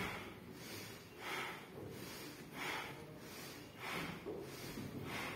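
Choir singers doing a rhythmic breathing exercise: short, forceful breaths repeating evenly about every second and a third, five in a row.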